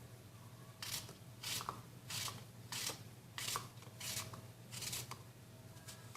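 Kitchen knife slicing an apple into thin slices: about seven short, crisp cuts, roughly two-thirds of a second apart, stopping about a second before the end.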